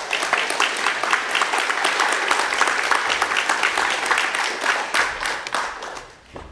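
Audience applauding: dense clapping that thins out and dies away near the end.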